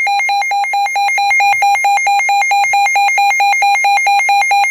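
Emergency alert attention tone: a loud, harsh electronic tone pulsing rapidly at about nine beats a second, sounded ahead of a Special Marine Warning voice message.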